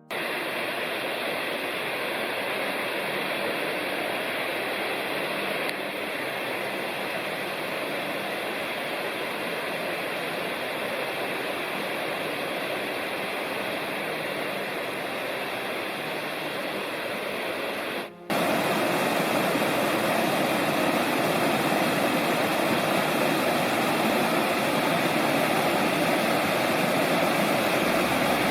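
Rushing mountain stream, a steady even rush of water over cascades. It breaks off for a moment about eighteen seconds in and comes back a little louder.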